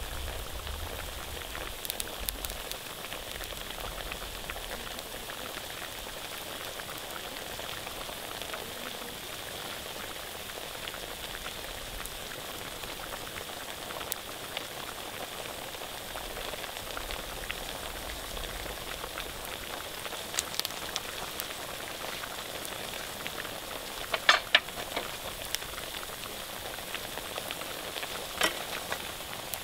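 Pork sizzling steadily as it fries in a pan, with a few sharp clicks and pops scattered through the sizzle and a small cluster of them near the end.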